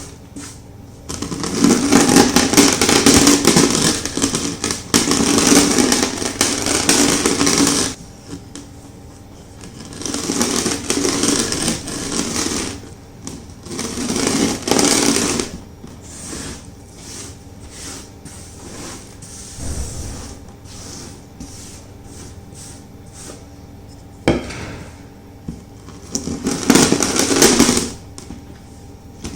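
Rolling pin crushing chunks of gym chalk: dense crunching and crumbling in four loud passes, the longest at the start, with quieter crackling between them.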